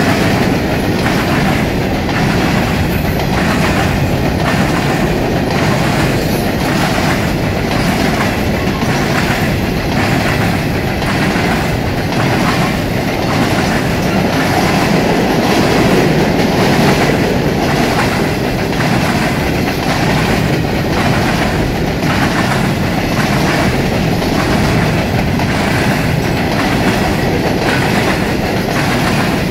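CSX coal train of steel hopper cars rolling past close by: a steady rumble with the wheels clattering over the track in an even rhythm, about once a second.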